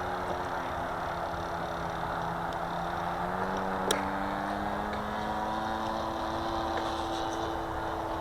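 Sky Surfer Pro RC plane's electric motor and propeller running at low throttle with a steady hum. Its pitch steps up slightly a few seconds in, with one sharp click just before that.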